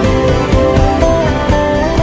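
Background music from a Hindi film song: sustained melody notes over a steady accompaniment.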